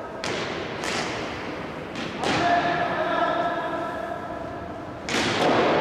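Indoor hockey play: a few sharp knocks of stick on ball, echoing in a large hall.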